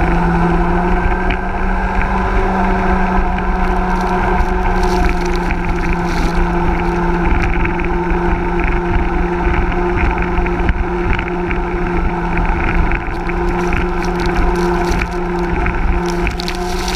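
Hison mini jet boat's 1400 cc engine running at a steady pitch under way, with water and spray rushing past the hull and wind buffeting the microphone.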